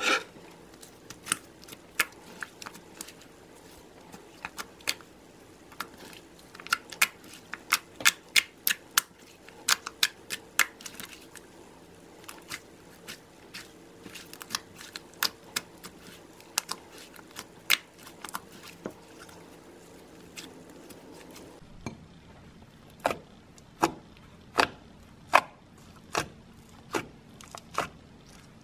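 Soft white slime kneaded and poked with fingers, giving irregular sharp clicks and pops, bunched several a second at times.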